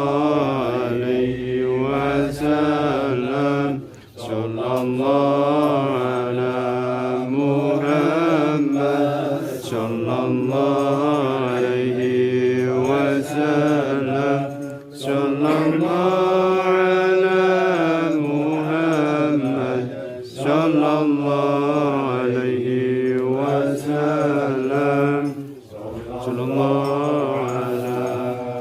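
A group of voices chanting an Arabic Islamic devotional song (sholawat) in unison. They hold long, slowly bending notes and break off briefly every several seconds.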